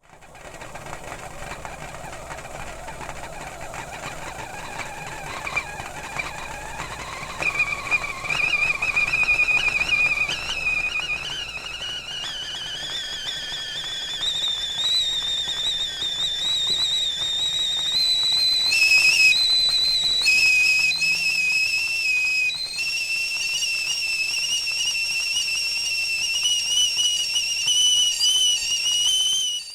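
Whistling tea kettle coming to the boil: the whistle starts low and faint and rises in pitch as it grows louder. Past the middle it briefly sounds two tones at once, then settles into a steady, slightly wavering high whistle that cuts off suddenly at the end.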